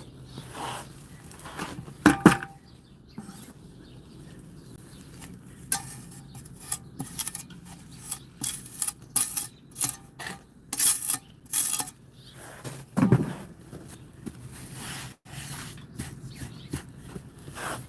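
Irregular scrubbing and rubbing strokes on a hard surface, cleaning it down, in quick runs of short strokes with a few heavier ones.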